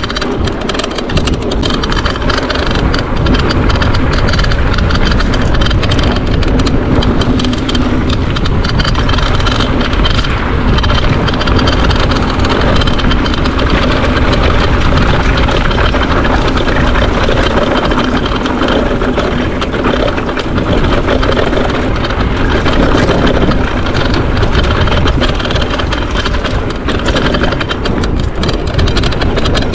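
Mountain bike being ridden along a trail: a loud, steady rush of tyre and wind noise, with frequent small rattles and knocks from the bike.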